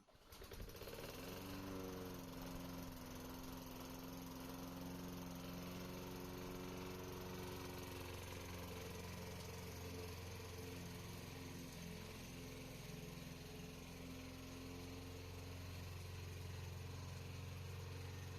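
Small gasoline lawn mower engine on a radio-controlled mower starting up: its pitch climbs over the first second or two, then it runs steadily.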